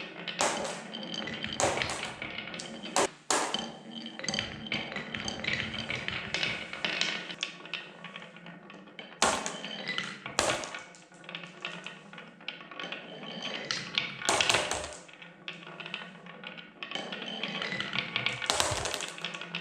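Marbles rolling and clattering down a wooden marble run track: a continuous rattle of small clicks and knocks, with several louder clacks along the way.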